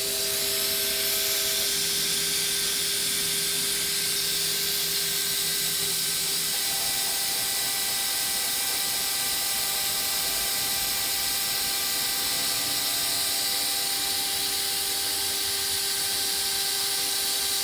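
JINKA 3827 CNC router milling 3 mm Dibond aluminium composite sheet: a steady high hiss from the spinning cutter, with several steady whining tones, some of which stop or change a few times.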